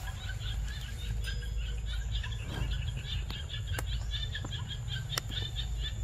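Forest ambience: rapid, repeated high chirping of small birds over a steady low rumble, with a couple of sharp clicks in the second half.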